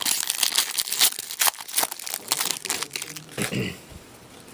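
Wrapper of a 2008-09 Upper Deck SPX hockey card pack crinkling as it is torn open and handled: a dense run of crackles that stops about three seconds in.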